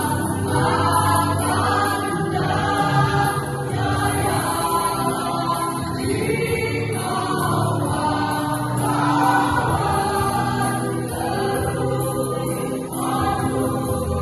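A choir singing together in sustained, pitched phrases.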